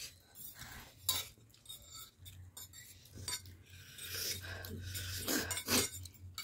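Metal forks clinking and scraping against ceramic plates as several people eat noodles, with a handful of sharp clinks spread through it.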